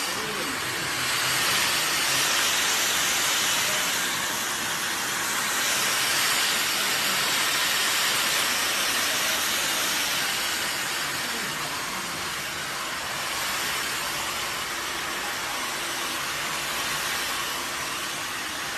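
A steady hiss with no clear pitch, loudest in the upper range.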